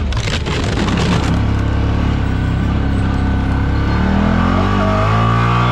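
CF Moto 1000 ATV's V-twin engine running under way on a rough track, with a short clatter of knocks and rattles in the first second. About four seconds in, the engine revs up and its pitch rises, then holds.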